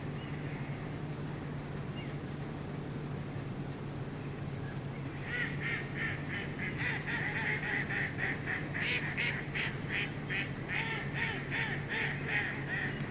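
Waterfowl calling: a rapid run of sharp calls, several a second, starts about five seconds in and keeps on until near the end, over a steady low hum.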